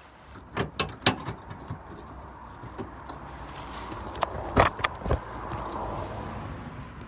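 Hand-bent sheet-steel repair patch being handled and pushed into a van's wheel arch: a few sharp metallic clicks and knocks, in a cluster about a second in and another about four to five seconds in, over a steady rushing background that grows in the second half.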